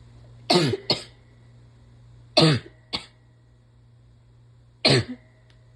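A woman's half-stifled sneezes, three of them about two seconds apart, each a sharp burst followed by a shorter second one: a run of sneezes during a sneezing fit.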